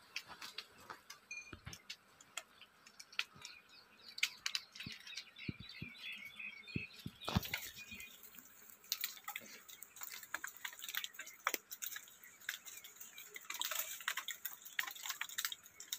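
Branches and leaves of a tree cracking, snapping and rustling in scattered, irregular faint clicks as a climber moves through them, with a few bird chirps.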